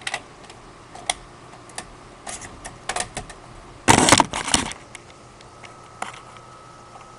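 Close handling noise: a series of sharp clicks and knocks, with a louder rattling clatter about four seconds in.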